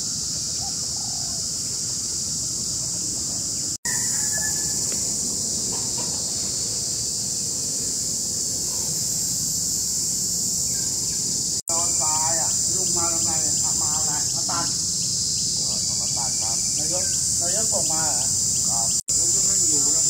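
Steady high-pitched buzzing of an insect chorus, with faint voices talking underneath in the second half. The sound cuts out for an instant three times.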